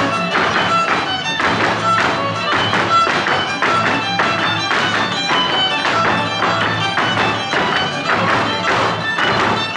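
Huasteco string trio (violin, jarana and huapanguera) playing a huapango instrumental section, with the violin carrying the melody. Over it comes the dancers' steady zapateado, heels and soles stamping the rhythm on the stage floor.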